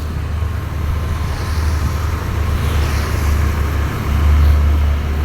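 Vehicle on the move: a steady low engine and road rumble that swells louder about four seconds in.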